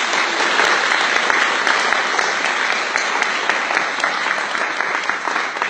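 A small audience applauding: many hands clapping in a dense, steady patter that starts to die away near the end.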